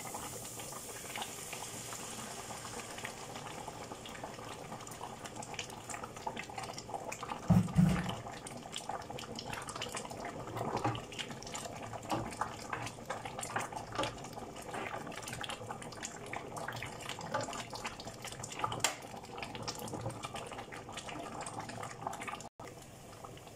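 Leek, carrot and paprika frying in a pan with a little water just added, sizzling and bubbling with a dense steady crackle. A single heavier thump comes about 8 seconds in.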